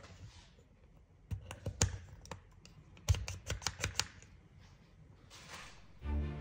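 Small hard pistol parts clicking and snapping as they are fitted together by hand, in two quick runs of sharp clicks. Music starts near the end.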